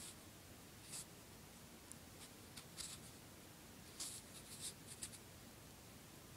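Faint, brief scratchy rustles, a few short bursts spread over several seconds against near silence.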